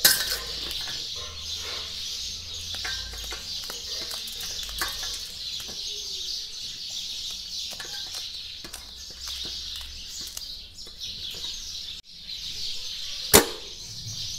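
Small knife clicking and scraping against a stainless steel plate as green chillies are chopped, with light taps throughout. A single sharp metallic clank near the end as a steel tumbler is set down on the plate. Birds chirping steadily in the background.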